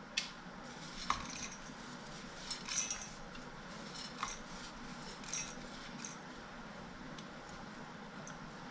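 Crispy fried gram-flour bits dropped by hand into a small steel mixer-grinder jar: a few light clinks and rustles, spaced a second or so apart.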